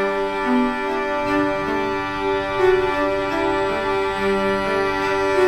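Background music: slow sustained chords on a keyboard or organ-like pad, with notes shifting gently underneath.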